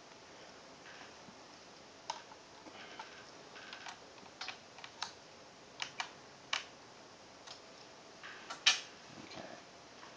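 Irregular light clicks and taps of a small screwdriver and hands working on a laptop's plastic screen bezel and hinge, about a dozen, the loudest a little before the end.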